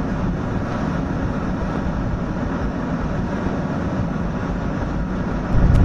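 Steady low rumble of a jet aircraft in flight, heard from inside the cockpit: engine and airflow noise, growing louder near the end.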